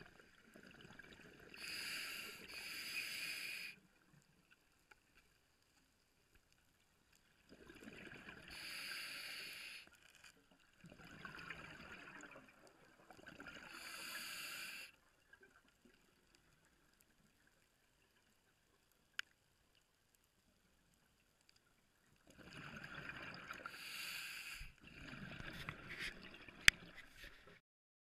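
A scuba diver's exhaled breath bubbling out of the regulator underwater: rushing bubble bursts of one to three seconds, mostly two at a time, with quiet pauses between breaths. A sharp click sounds near the end.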